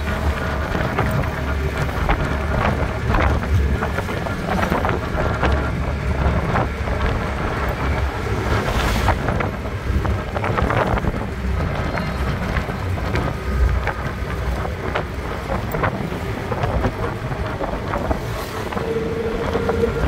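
Wind buffeting the microphone over road and engine noise while riding in an open-sided auto-rickshaw along a rough road. A short steady tone sounds near the end.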